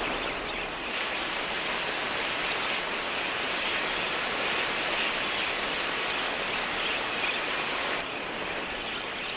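A large flock of wild budgerigars chattering, heard as a dense, steady high twittering of many birds at once. Near the end a fast, even high-pitched ticking joins in.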